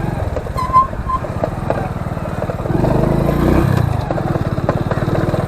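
Motorcycle engine running as the bike moves off, getting louder for about a second around three seconds in. A short two-part beep sounds just under a second in.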